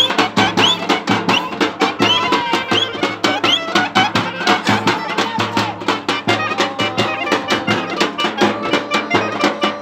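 Live Bulgarian folk wedding band: a clarinet plays a fast melody full of quick upward slides over a steady, driving drumbeat.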